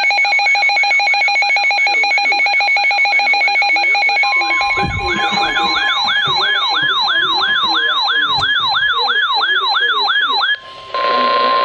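Weather alert radios sounding their electronic alarms for an incoming warning. A fast pulsing warble comes first. The steady 1050 Hz NOAA Weather Radio warning tone joins about four seconds in, and a rising sweeping siren joins at about three sweeps a second. The sirens cut off about ten and a half seconds in, leaving the steady warning tone.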